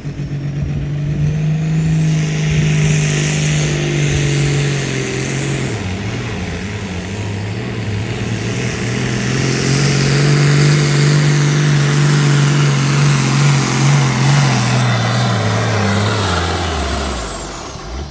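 International Harvester 1066 Turbo tractor's turbocharged six-cylinder diesel running flat out as it pulls a weight-transfer sled. Its pitch sags about six seconds in, climbs again, then drops away near the end as the revs fall, with a faint high whistle that climbs at the start and falls near the end.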